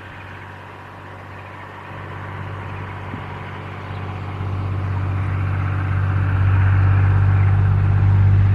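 A vehicle engine running at a steady pitch, growing steadily louder over several seconds as it draws closer.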